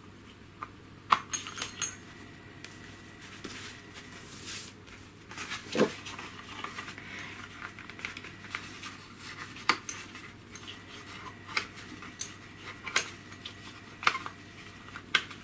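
Punched paper pages and cardstock covers being pressed onto disc-binding discs: irregular small clicks and taps with some paper rustling.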